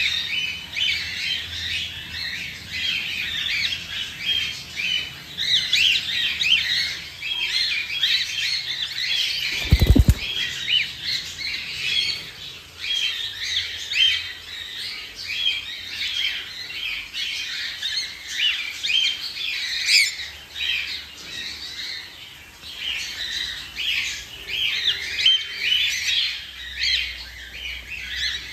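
A flock of cockatiels chirping and squawking, many short overlapping calls at once. A single loud thump about ten seconds in.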